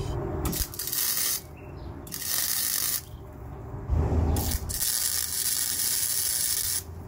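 Wire-feed (MIG) welder arcing in short stop-start bursts of crackling hiss as spot welds are laid to tack a sheet-metal rust-repair patch onto a Jeep body: three brief bursts, then a longer one of about two seconds near the end. A brief low thump comes about four seconds in.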